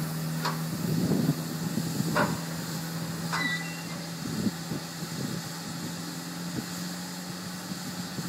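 Robert Stephenson & Hawthorns M4 4-6-2 steam locomotive standing in steam, giving a steady low hum, with a few sharp clicks about half a second, two seconds and three seconds in.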